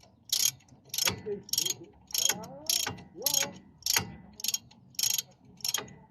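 Ratchet wrench worked back and forth, a short burst of clicking on each return stroke, about two a second, as a brake caliper bolt is tightened.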